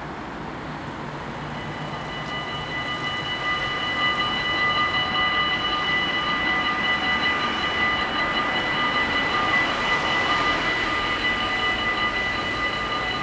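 Dutch automatic level-crossing warning bells ringing in a fast, even clatter as the crossing activates and the barriers lower, getting louder over the first few seconds. A car's tyre noise swells and passes near the end.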